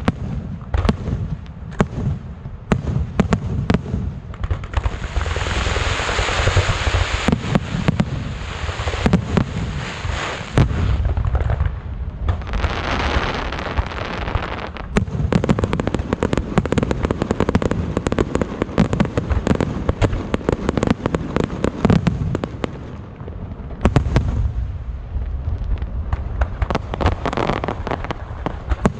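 Aerial fireworks display: shells bursting in quick succession with deep booms and a dense crackle of sharp reports, rising twice into loud hissing, crackling showers.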